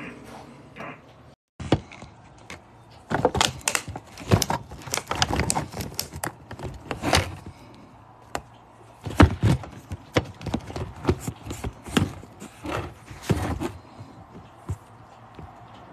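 Irregular clicks, taps and knocks of things being handled close to the microphone, coming in clusters of several a second.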